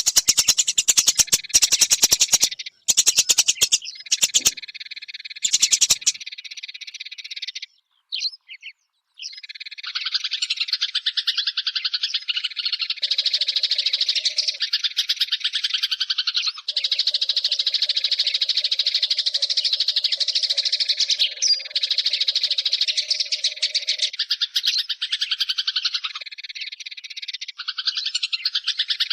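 Eurasian tree sparrow chirping in fast, dense runs of high chirps, with a short break about eight seconds in.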